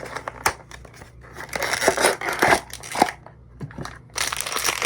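Blind-box packaging being torn open and crinkled by hand, in crackly bursts with a few sharp clicks between them.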